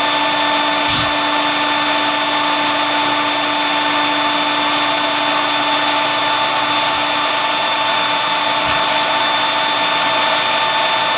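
Vacuum-type electric blower motor running with a steady whine, drawing gas through a wood gasifier and blowing it out of an unlit flare pipe.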